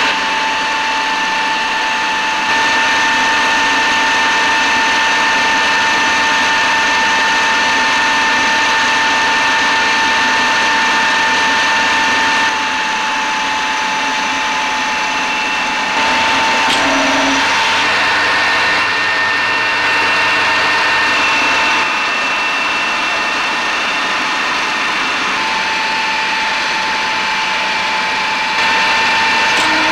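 Metal lathe running under power feed, turning a steel bar: a steady gear whine with the hiss of the tool cutting steel. The level steps up and down a few times.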